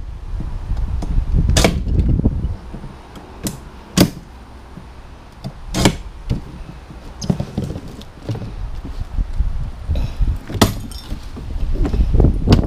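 Scattered sharp metal knocks and clanks, about half a dozen, as a piece of scrap metal is handled and worked while someone tries to fold it, over a steady low rumble.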